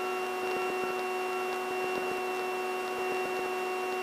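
Steady cabin drone of a Piper Aztec twin in cruise on its right engine alone, the left engine shut down with its propeller feathered: an even hum with several held tones from the running engine and propeller.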